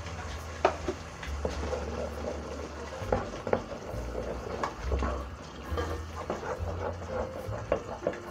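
Wooden spoon stirring thick tomato sauce in an aluminium pot, with irregular soft scrapes, clicks and knocks of the spoon on the pot and the sauce.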